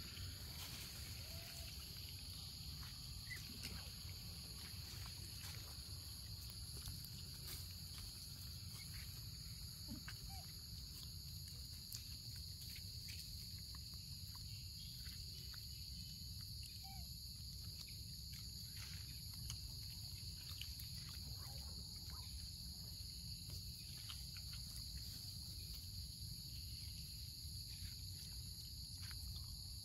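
Steady high-pitched drone of insects, over a low rumble, with scattered faint clicks and a few brief faint squeaks.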